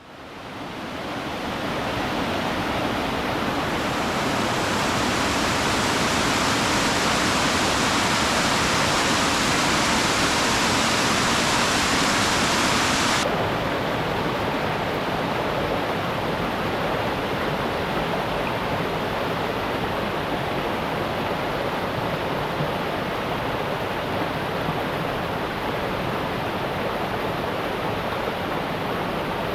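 Steady rush of falling water, fading in at the start. About thirteen seconds in, the hiss drops suddenly to a duller, lower rush that continues to the end.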